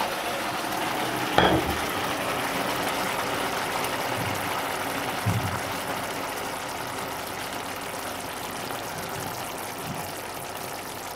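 Fish fillets in soy sauce simmering and sizzling in a frying pan, a steady hiss that slowly fades. A sharp knock about a second and a half in, and a couple of low bumps a few seconds later.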